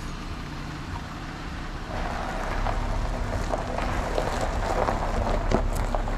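Jeep Wrangler moving off at low speed: a steady low engine hum. From about two seconds in, its tyres crunch over gravel, and the sound grows louder.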